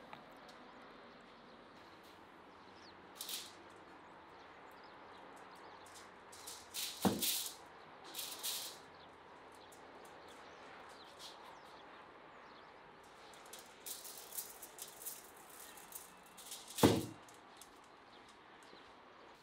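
Raw whole chickens and a metal rotisserie spit being handled: scattered short rustling and scraping noises, with two sharp knocks, one about seven seconds in and a louder one near the end.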